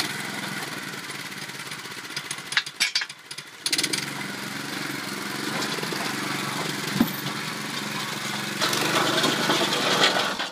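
The small 5.5 hp engine of a JärnHästen tracked carrier running steadily as the machine drives down off a trailer. The engine sound dips briefly about three seconds in and grows louder near the end.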